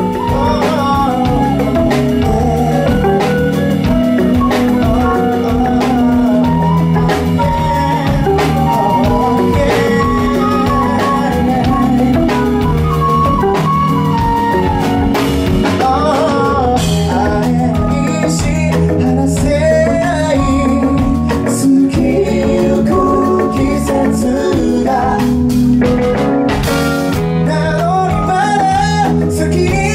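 Live band music: a male lead singer sings a melody over a band with drums, keyboard and flute, with a steady beat throughout.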